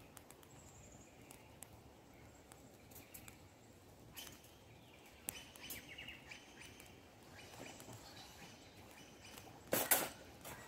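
Quiet outdoor ambience with faint bird chirps and scattered small clicks, and one louder brief noise near the end.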